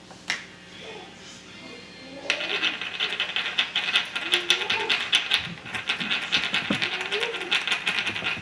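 Salt and pepper shakers shaken rapidly by hand, a fast dry rattle that starts about two seconds in and goes on for about six seconds.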